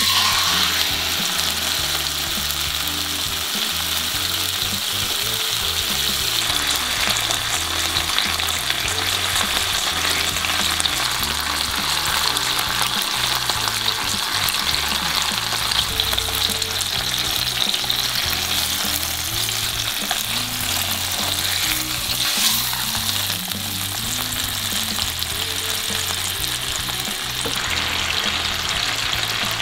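Soy-and-mirin-marinated chicken thigh sizzling in oil in a nonstick frying pan. It starts suddenly as the meat is laid in, then settles into a steady, dense sizzle, with one louder crackle about two-thirds of the way through.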